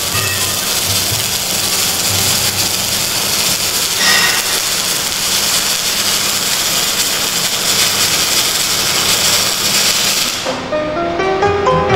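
MIG welding arc from an automatic welding machine burning with a steady hiss, which cuts off sharply about ten and a half seconds in as the weld ends. Background music plays underneath.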